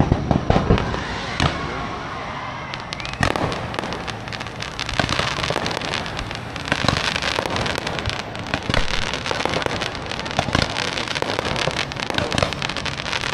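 Fireworks going off: a few loud bangs in the first second or so, then from about three seconds in a dense, continuous crackling of many small bursts.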